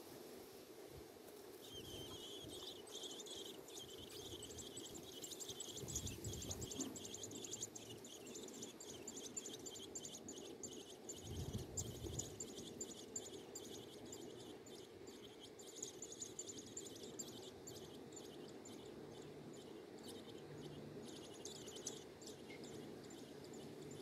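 American robin nestlings giving begging calls: a dense run of rapid, high chirps starting about two seconds in, as an adult robin comes to feed them. A couple of low rumbles are heard under it.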